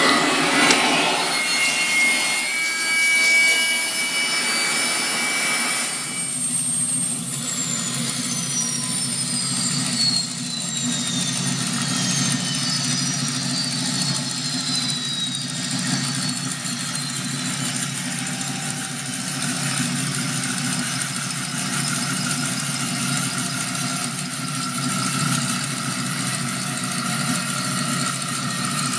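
Toy space shuttle's electronic jet-engine sound effect. A noisy engine sound with steady tones runs for the first few seconds; from about seven seconds in, whines fall slowly in pitch over several seconds above a steady engine hum that then carries on.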